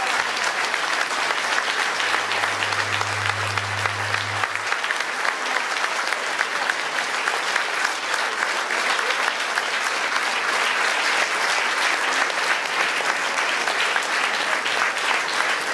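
A large audience applauding, a dense, steady clapping that holds at the same level throughout.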